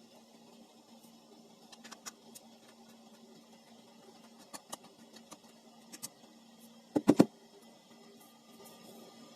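Small plastic clicks and scrapes as a Bluetooth speaker's casing is handled during disassembly, with a quick cluster of three loud knocks about seven seconds in.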